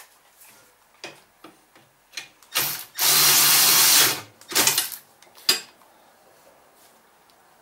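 Power drill-driver running a bolt in: a short spin, a steady run of about a second, then another short spin, with light tool clicks around it.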